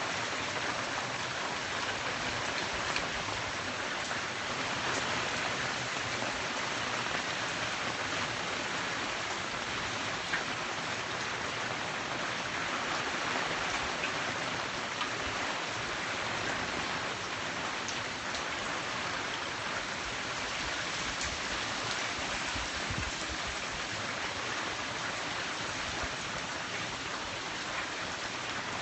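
Rain falling steadily, an even hiss with scattered close drop ticks.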